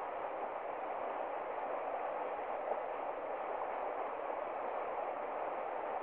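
Shallow river rapids rushing steadily over rocks, white water churning without a break.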